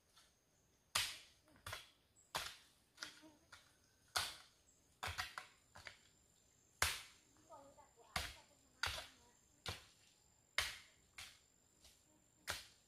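Repeated sharp strikes of a hand tool, irregular, about one a second, each with a short ring-out.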